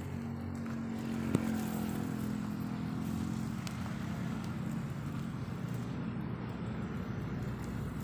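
An engine running steadily with a low hum, and a single sharp click about a second and a half in.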